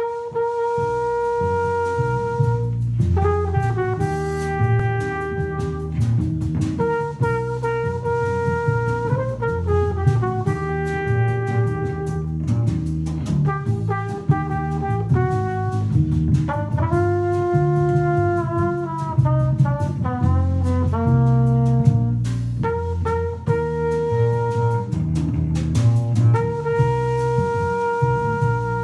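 Live small-group jazz: a trumpet plays the melody in long held notes over a plucked upright double bass and a drum kit with cymbals.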